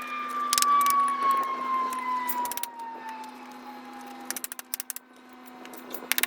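A power tool's motor winding down after switch-off: a whine that falls steadily in pitch and fades over about four seconds. Short bursts of rapid clicking come and go around it.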